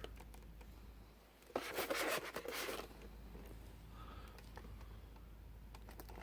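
A scraping rustle of boxed packaging being handled, lasting just over a second and starting about one and a half seconds in, with a few faint clicks around it.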